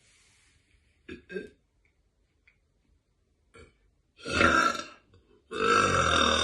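A woman burping: two long, loud burps, the first about four seconds in and a longer one close after it, preceded by a couple of short faint sounds about a second in.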